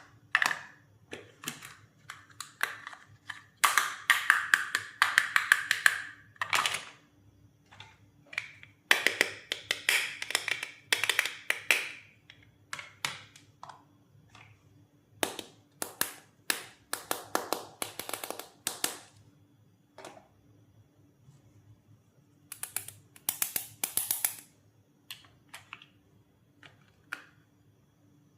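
Toy doctor set pieces being handled: irregular sharp clicks and taps, some in quick clattering runs, others single.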